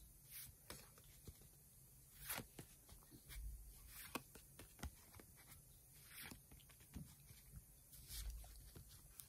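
Faint, scattered soft clicks and rustles of trading cards being slid one at a time from a held stack, with a couple of soft low thumps of hand handling.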